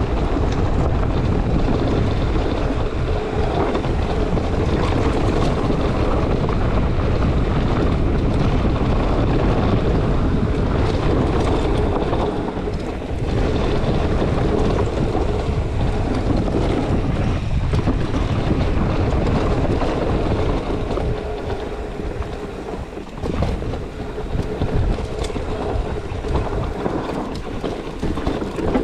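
Mountain bike running fast down a rocky enduro trail: steady wind rush on the action camera's microphone, with tyres rumbling over stones and the bike rattling. The rush eases somewhat about two-thirds of the way through.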